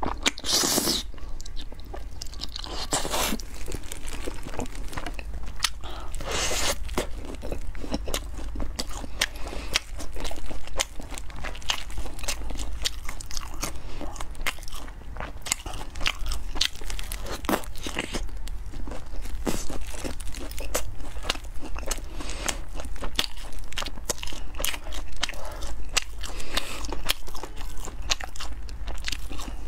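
Close-miked eating: a few slurps of noodles in the first seconds, then repeated crunchy bites and chewing of crispy fried food coated in sauce, many sharp crackles.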